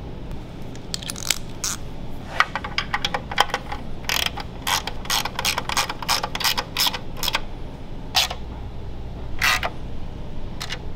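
Socket ratchet wrench clicking in short runs of quick clicks with pauses between, as bolts on a small engine's blower housing are turned and snugged down.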